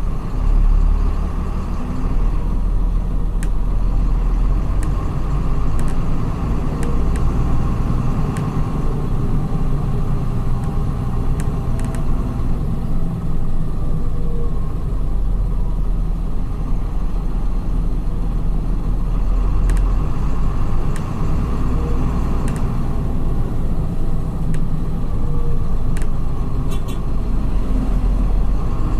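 Diesel drivetrain of a Volkswagen 17.230 EOD coach with a ZF gearbox running under way, heard from the driver's seat: a steady low rumble with scattered light ticks.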